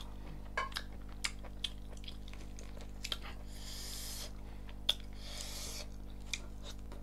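Close-miked eating sounds: scattered wet mouth clicks and smacks from chewing, with two brief hissy rustles about halfway through as fingers tear at the curried chicken on the plate, over a steady low hum.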